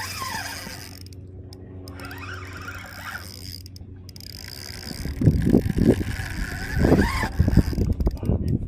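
Wind buffeting the camera microphone in irregular low rumbling gusts from about five seconds in, over a faint steady hum.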